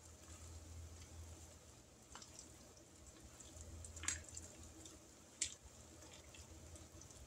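Dumpling strips dropped one at a time into boiling chicken broth: faint plops and splashes, three in all, the clearest about four and five and a half seconds in, over a low steady hum.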